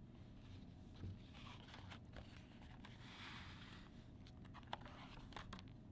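Faint paper handling as a paperback picture book is opened: soft rustles and light taps of the cover and pages, with a brief swishing slide of paper about three seconds in.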